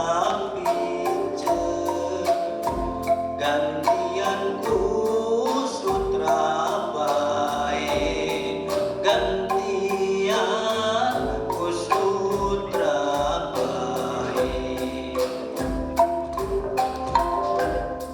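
Calung renteng, a row of bamboo slats tied in a line from smallest to largest and struck with mallets, playing a fast, dense pattern of pitched bamboo strikes.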